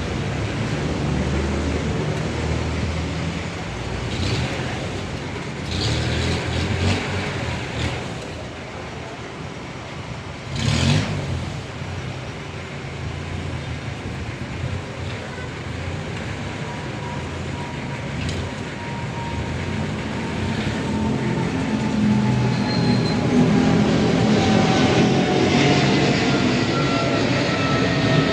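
Steady vehicle engine noise with a single sharp knock a little before the middle and a few lighter clicks; over the last dozen seconds a faint whine slowly falls in pitch as the noise grows louder.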